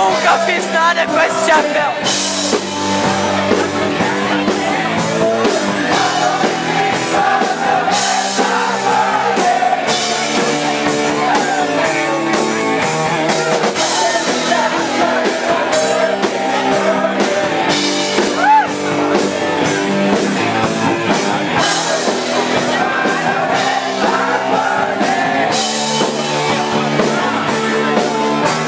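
Live rock band playing with a singer: vocals over bass, guitar and a drum kit with regular cymbal crashes.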